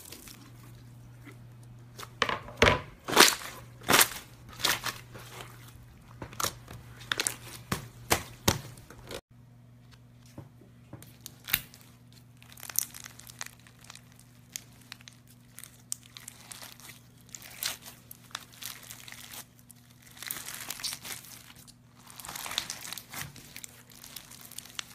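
Sticky pops, about two a second, as pink slime is pressed through a racket's strings. This is followed by softer, irregular crunching and crackling as pink crunchy slime packed with beads is squeezed and kneaded by hand, denser near the end.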